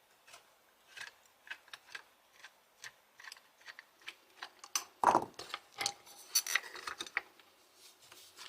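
Small metal clicks and clinks of an angle grinder's gear housing being taken apart by hand, with a louder clatter of parts about five seconds in.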